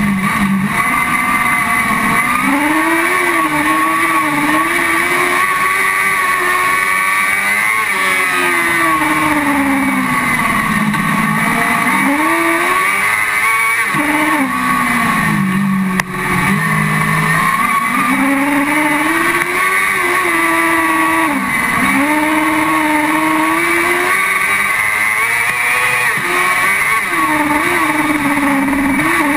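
Motorcycle-engined car-cross buggy at racing speed on a dirt track, heard from inside the cockpit: the engine revs climb on each straight and fall away into each corner, over and over, under a steady rush of wind and gravel.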